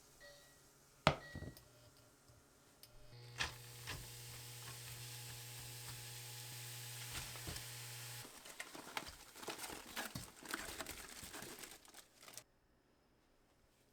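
A couple of short electronic beeps and a click, then a small electric appliance hums steadily for about five seconds and stops abruptly. Light kitchen clatter and crinkling follow.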